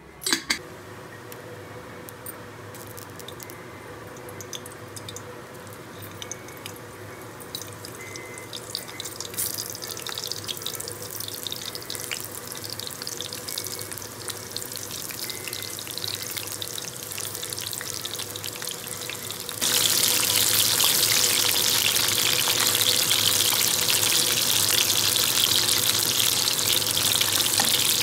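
Stuffed bitter gourds frying in hot oil in a kadai: a sizzle with scattered crackles that builds steadily and turns abruptly louder about twenty seconds in. A couple of sharp knocks sound just after the start.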